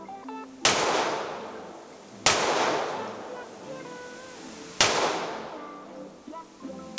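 Handgun fired slowly on an indoor range: three shots about one and a half to two and a half seconds apart, each echoing off the walls as it dies away, with a fourth shot right at the end.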